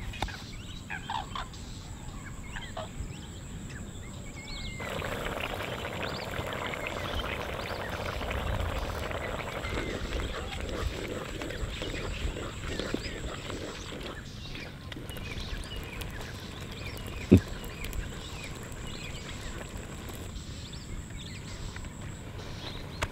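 Thick green-chickpea and potato curry bubbling and popping in a clay pot over a wood fire, busiest through the middle. A single sharp knock comes about two-thirds of the way through.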